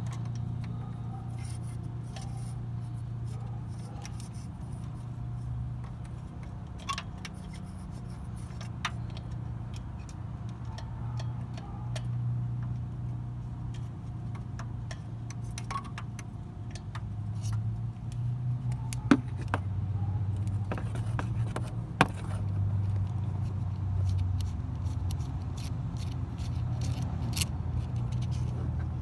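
Small metallic clicks and clinks of hand tools and the EGT probe fitting being threaded into the exhaust manifold, scattered throughout, with two sharper clicks about 19 and 22 seconds in, over a steady low hum.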